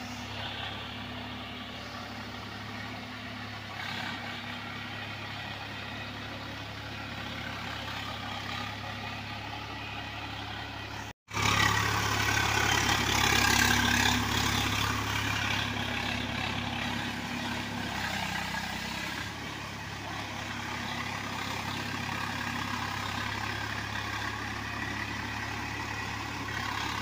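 Swaraj 855 FE tractor's three-cylinder diesel engine running steadily under load as it pulls a rotavator through a flooded paddy field, churning mud and water. The sound breaks off abruptly about eleven seconds in and comes back louder.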